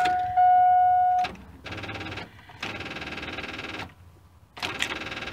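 Chevy V8 pickup failing to start on a dead battery jumped from an 18-volt drill battery: a steady electronic warning chime for about a second, then three spells of rapid electrical buzzing chatter as the key is tried, with no cranking. There is too little power to turn the engine over.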